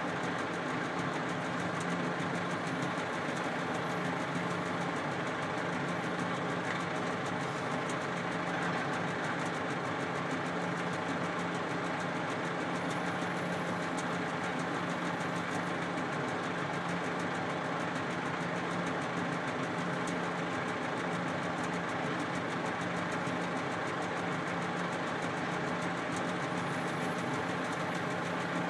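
Volvo A30C articulated hauler's diesel engine idling steadily, heard from inside the cab, with a constant low hum.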